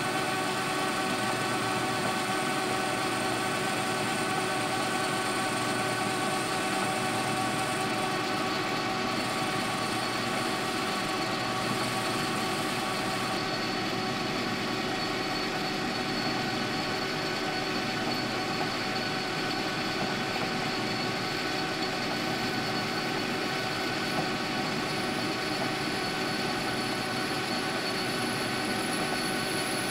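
Metal lathe running steadily as it spins a brass bushing, a constant machine whine of several held tones.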